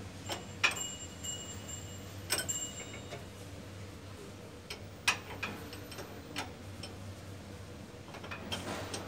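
Sharp, irregular metallic clicks and clinks, a few with a brief high ring, from hand work on the escalator's handrail drive wheel and chain, over a steady low hum.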